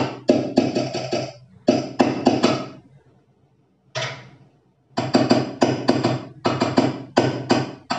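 Electric hand mixer whipping cream frosting in a steel pot, its motor humming while the beaters knock and clatter against the sides of the pot several times a second. It stops for a second or two midway, then starts again.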